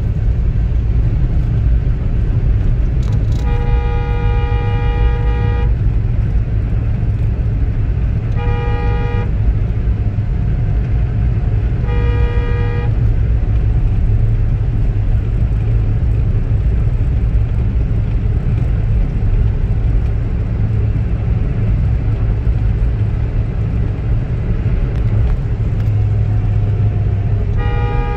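Steady low road and engine rumble heard inside a moving car, with a vehicle horn honking four times: one long honk about three and a half seconds in, short honks at about nine and twelve seconds, and another right at the end.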